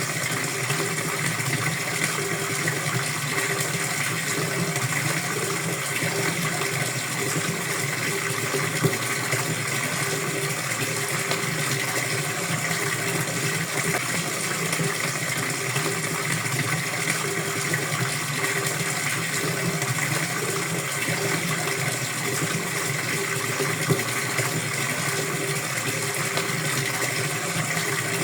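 Water flowing in a steady, unbroken rush.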